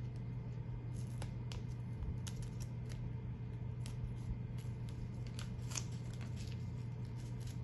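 Scattered small clicks and crinkles as a hobby knife and gloved fingers handle vinyl stencil pieces and clear plastic transfer paper, over a steady low hum.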